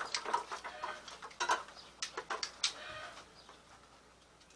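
Chickens clucking in short bursts, mixed with a few sharp clicks and clinks of utensils against a plastic bucket; the sounds thin out near the end.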